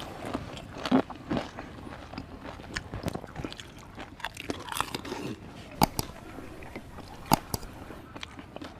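Crisp fuchka (pani puri) shells being bitten and chewed fast, with a run of sharp crunches. The loudest come about a second in and twice in the second half.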